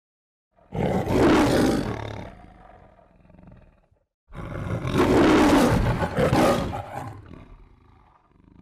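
Two loud lion roars in the manner of the MGM logo, the first starting just under a second in, the second starting about three and a half seconds later and lasting longer.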